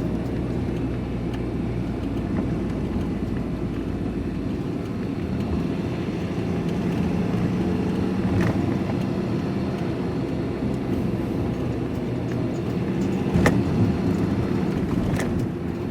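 Van engine and tyre noise heard from inside the cab while driving: a steady low drone, with two sharp clicks, one about halfway through and one near the end.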